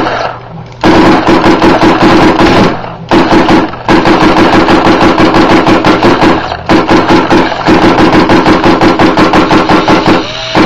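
Indian Creek Designs BKO paintball marker, run on a nitrogen tank, firing rapid semi-automatic shots at about eight a second, in five strings broken by short pauses. The recording is loud and rough in quality.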